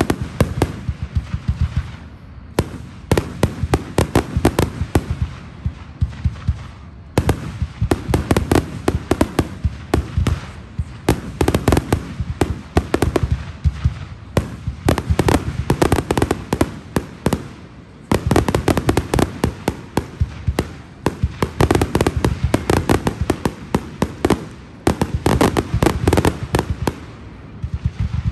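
Aerial fireworks display: a dense, rapid barrage of shell bangs and crackling, with short lulls every few seconds before the next volley.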